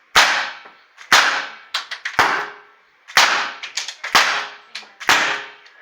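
Crosman 357 snub-nose CO2 air revolver fired six times, about one shot a second, each a sharp crack with a short ringing tail, with small clicks between shots.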